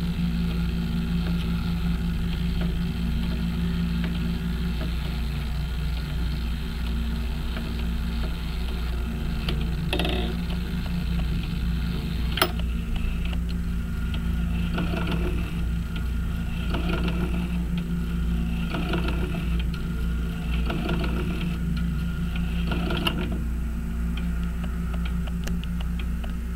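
Hermle 451-050H grandfather clock movement running with its chimes removed: the escapement ticks steadily over a low hum, and about halfway through a sharp click sets the chime train turning, its gears and levers whirring and clattering in bursts about every two seconds with no bells sounding.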